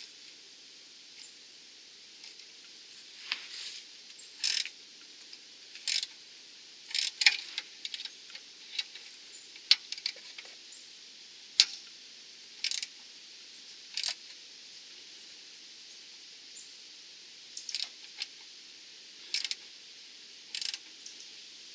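Ratcheting wrench clicking in short bursts on each return swing as it backs a nylon locknut off a sway bar link stud, stroke after stroke, with a pause of a few seconds in the middle. The nut is stubborn and comes off only slowly.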